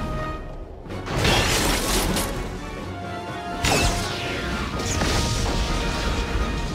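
Cartoon explosion sound effects over orchestral-style music: a sudden crash about a second in, then a quickly falling whistle and a blast at about four seconds as a missile hits.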